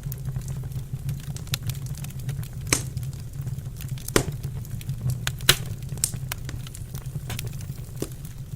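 Wood fire crackling in a fireplace: irregular sharp pops and snaps, a few of them louder, over a steady low hum.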